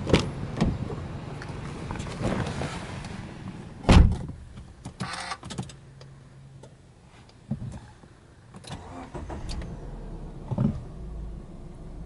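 A car door is opened with a couple of clicks and then shut with a heavy thump about four seconds in, followed by small handling noises inside the cabin. Near the end the Subaru Legacy B4's flat-four boxer engine starts and settles into a steady low idle.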